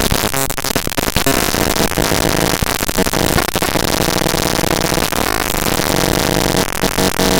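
Harsh data-bending noise: raw tshark network-capture text played back as 32-bit big-endian float audio, giving a dense static wash laced with shifting buzzing tones. Near the end it changes to a rapid, even stutter of pulses.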